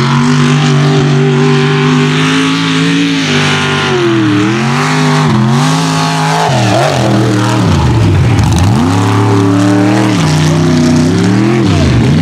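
Mega mud truck's engine running at high revs, held steady at first and then dropping sharply and climbing back several times as the throttle is let off and opened again over the course's obstacles.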